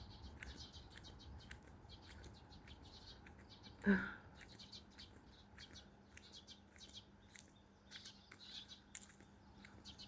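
Small birds chirping, short high chirps repeating throughout, with one brief louder pitched sound about four seconds in.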